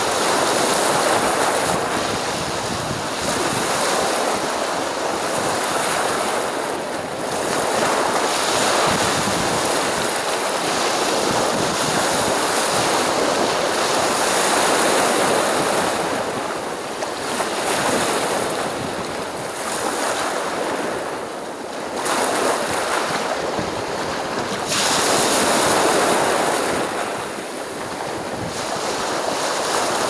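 Black Sea surf: waves breaking and washing up the shore in swells every few seconds over a constant hiss.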